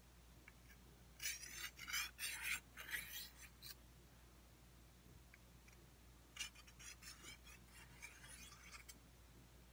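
Small oiled sharpening stone drawn along the stainless steel blade of a Bushmaster Cobra Strike machete in quick scraping strokes. The strokes come in two runs, the first about a second in and the second past the middle.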